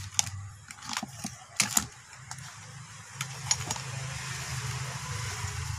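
Several sharp clicks and knocks of the wired switch board being handled in the first two seconds, then a steady low hum with a hiss.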